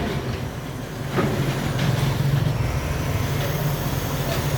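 Pile driver rig moving along the street, its engine running with a steady low rumble and a few faint knocks.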